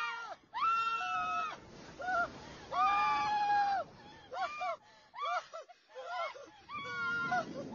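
A man and a woman screaming on a thrill-ride drop: two long, high held screams, then a string of shorter shrieks and laughter.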